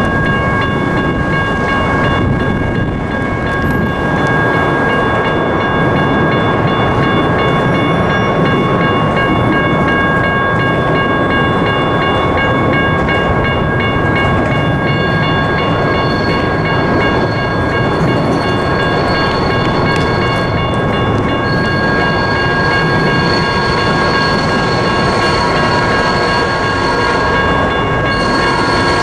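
Electronic railroad-crossing bells (General Signals Type 1) ringing steadily while the crossing is activated, over a continuous low rumble. A higher ringing tone joins about halfway through.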